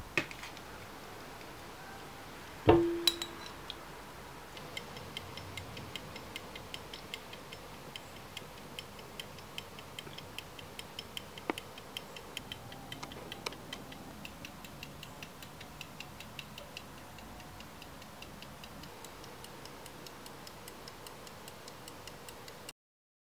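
An antique silver pair-cased verge fusee pocket watch running, its movement ticking fast and evenly. About three seconds in there is one sharp metallic clink that rings briefly, and the ticking starts about a second and a half later and cuts off near the end.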